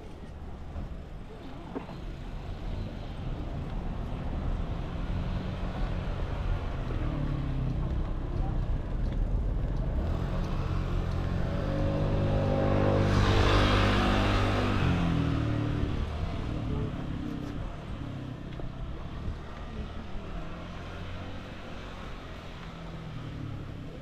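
A motor vehicle approaching and passing close by, growing louder to a peak about halfway through, then fading away.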